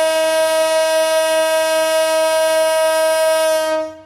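A passenger train's diesel locomotive horn sounds one long, steady blast on a single note, cutting off near the end. It is the locomotive's signal before it pulls out of the station.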